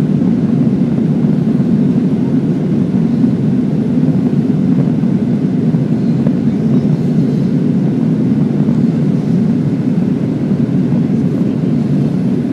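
Steady cabin noise of a jet airliner in flight, heard inside the cabin at a window seat: a deep, even rush that does not change.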